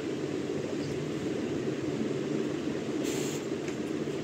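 Steady low rumbling background noise with no speech, with a brief rustle about three seconds in.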